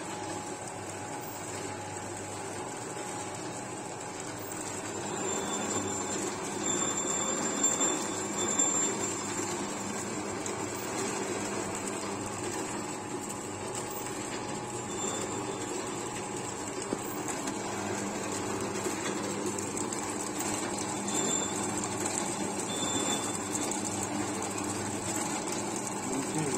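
Automatic vertical sachet-packing machine running, forming, filling and sealing a continuous strip of pouches: a steady mechanical running sound that grows a little louder about five seconds in.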